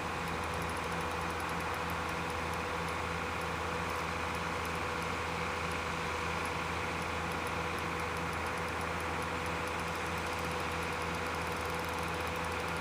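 A steady mechanical hum that holds an even level throughout, with a constant low drone and a fainter higher whine.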